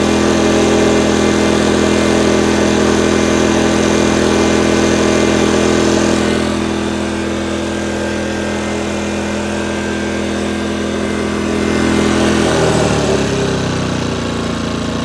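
Yikito EU22i petrol inverter generator running steadily under the light load of an electric fan. About two-thirds of the way through, its engine speed drops and settles at a lower pitch.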